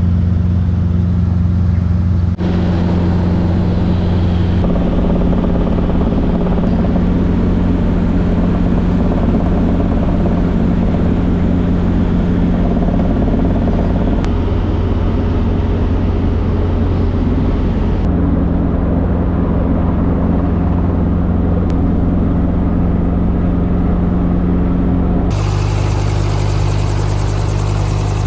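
Helicopter running: a loud, steady drone from the rotor and engine, whose tone changes abruptly several times.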